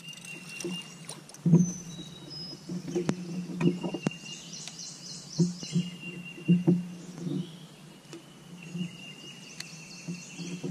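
Riverside outdoor ambience from a bass boat: a high, steady whistling call that breaks off and resumes, with quicker high chirping for a couple of seconds in the middle, over a low hum and a few light knocks.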